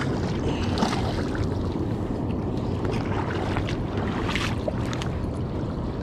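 Steady low rush of river water and wind on the microphone, with a few short sharp sounds from a fish being reeled in to the bank.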